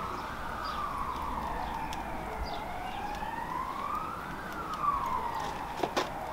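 An emergency-vehicle siren wailing, its pitch slowly rising and falling about every four seconds, with a couple of sharp clicks near the end.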